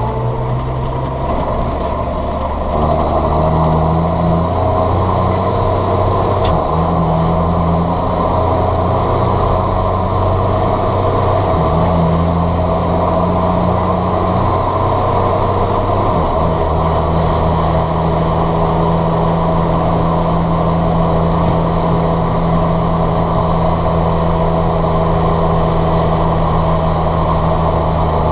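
John Deere 7710 tractor's six-cylinder diesel engine running steadily, getting louder about two and a half seconds in, with its note shifting slightly a couple of times. A single sharp click comes about six seconds in.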